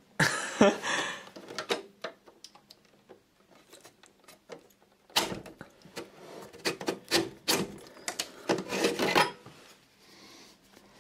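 Metal handling noise from a Mac Pro drive bay: a rubbing scrape at the start, then scattered clicks and a busier clatter in the second half, as a hard-drive carrier is unlatched and slid out.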